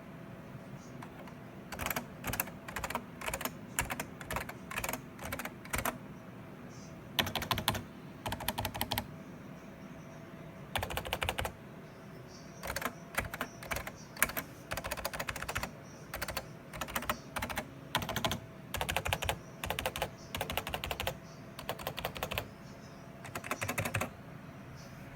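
Computer keyboard being typed on in quick runs of key strokes, with short pauses between the runs.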